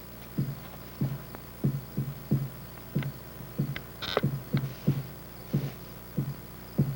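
A drum beating a steady, even pulse of low thumps, about three beats a second, with a few faint clicks between the beats.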